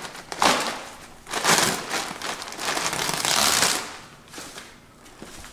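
Plastic sack of caustic soda crinkling as gloved hands grip and open it, in three bursts of rustling.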